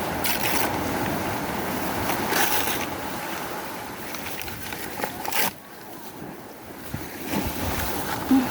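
Wind noise and sea surf: a steady rushing wash with a few louder gusts, dropping off suddenly about five and a half seconds in.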